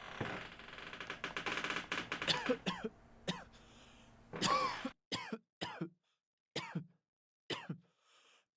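A person coughing and clearing their throat, a string of short separate coughs. In the first half they sit over a dense, busy background noise that drops away about four seconds in.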